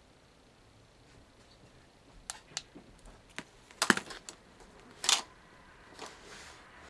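Hard plastic light-up wands clicking and knocking against each other as they are handled, a few scattered clicks, then a sharp cluster about four seconds in and a longer clack just after five.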